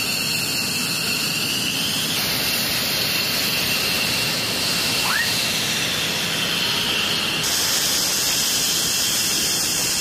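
An F-15E Strike Eagle's twin jet engines at taxi power: a steady rushing hiss with a high whine whose pitch shifts abruptly about two seconds in and again past seven seconds. A brief rising squeak comes about halfway through.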